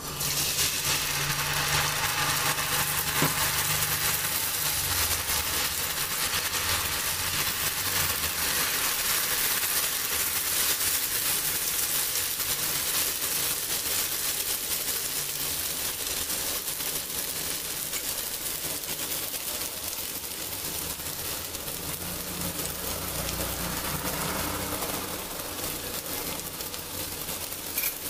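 Cucumber chilla batter sizzling in hot oil on a cast-iron tawa: a dense hiss that starts abruptly as the batter is poured and goes on steadily while it is spread. It eases a little in the second half. A low hum runs underneath.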